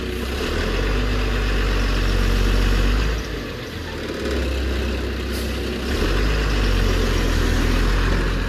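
Heavy diesel engine running with its load rising and easing. It drops off about three seconds in and picks up again about six seconds in.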